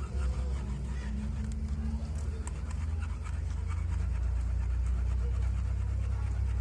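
Repeated scraping as a strand of old clutch cable is pushed in and out of a Yamaha RX-King carburettor's pilot jet to ream it wider, heard over a steady low hum.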